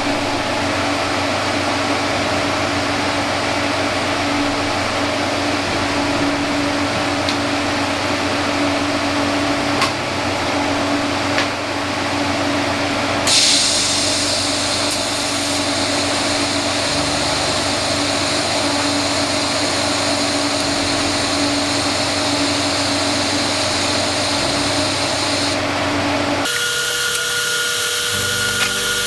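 A handheld electric power tool running steadily with a constant motor tone. At about 13 seconds in it turns brighter and more hissing, and it changes again a few seconds before the end.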